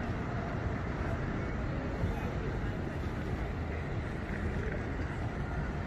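Steady low rumble of background noise, with faint voices in it.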